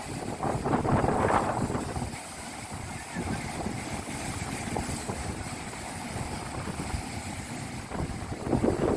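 Sea waves washing in with wind buffeting the microphone, a low rumbling wash that swells louder about a second in and again near the end.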